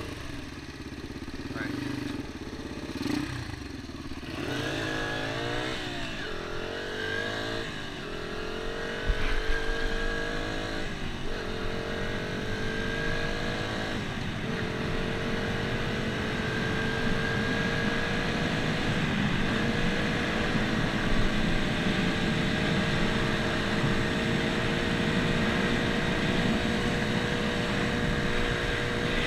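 Honda dirt bike's single-cylinder four-stroke engine accelerating hard through the gears. The revs climb and drop back at each upshift, with quick shifts in the first several seconds and then longer pulls. After that it holds steady at high revs, with wind rushing on the microphone.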